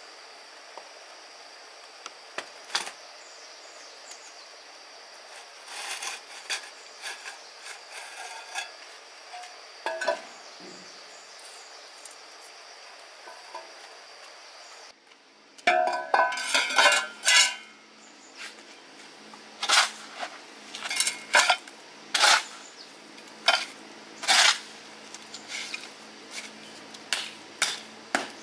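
Dishes and utensils clinking and clattering as they are handled, in a series of sharp knocks. A steady high-pitched hum sits underneath in the first half. About halfway through the background changes and the clinks come thicker and louder.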